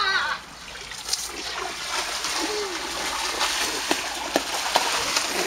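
Water splashing and sloshing in an inflatable above-ground pool as people play in it, with a few sharp slaps of water about four seconds in.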